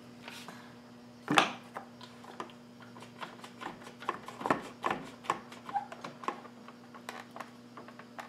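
Scattered clicks and knocks as a plastic pipe is handled and positioned against a wooden fence on a drill press table, with a sharper knock about a second in and another about halfway, over a steady low hum.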